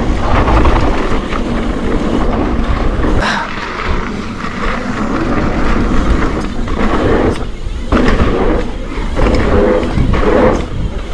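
Mountain bike rolling fast down a dirt flow trail: a steady rush of tyre and wind noise with low rumble, and knocks and rattles from the bike over bumps several times.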